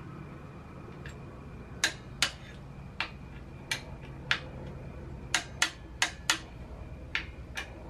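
Torque wrench clicking as it is worked on the foot peg bracket bolts, set to 26 foot-pounds. About a dozen sharp metal clicks come at uneven intervals, starting about a second in, over a faint low steady hum.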